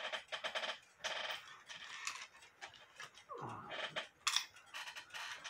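Short bursts of light clicks and rattles from hands handling a head-band magnifier visor and the clock, with a sharper click a little after four seconds in.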